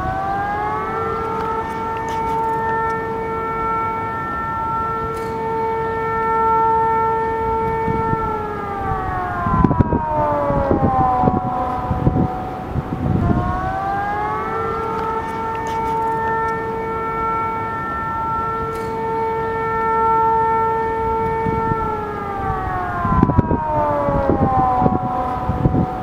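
Bahraini civil defense warning siren, several tones sounding together, rising, holding steady for about seven seconds, then falling away, twice over. Low rumbling noise comes in as each wail falls.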